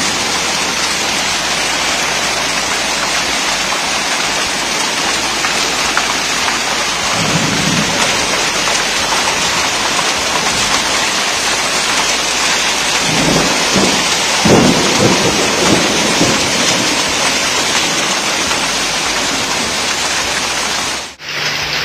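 Heavy rain and hail pelting a corrugated metal roof: a loud, dense, unbroken drumming clatter during a hailstorm.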